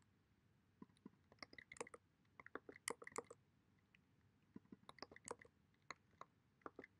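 Faint, irregular clicks of computer keys and mouse buttons in two quick flurries, the first about a second in and the second near the end.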